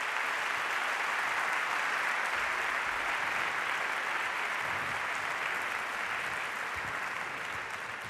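A large audience applauding steadily.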